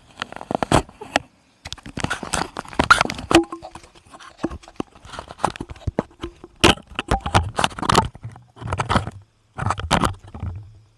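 Handling noise close to an action camera's microphone: irregular clusters of knocks, scrapes and rubbing, broken by short silences.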